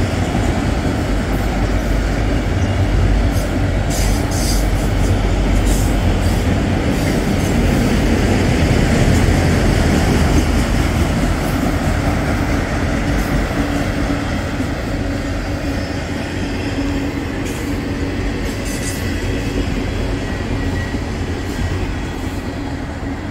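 Freight train of autorack cars rolling past, its steel wheels rumbling on the rails with sharp clacks over the rail joints. The rumble grows fainter over the last few seconds as the rear of the train draws away.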